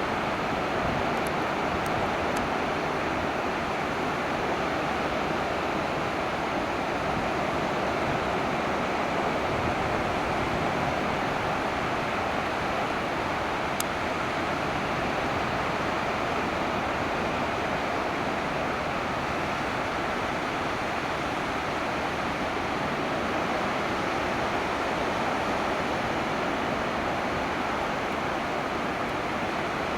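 Ocean surf breaking steadily on the beach, a continuous rushing wash of waves from leftover typhoon swell.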